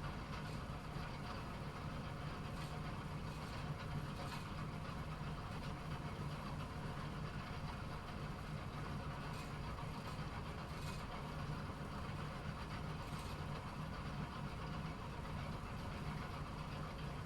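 Bowling pinsetter machinery running with a steady low mechanical hum and faint, scattered light clicks.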